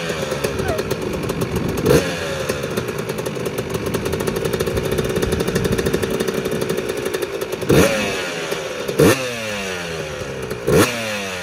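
Yamaha YZ125's single-cylinder two-stroke engine running on the stand, freshly rebuilt, idling between throttle blips. It is blipped once about two seconds in and three times in quick succession near the end, the pitch falling back to idle after each.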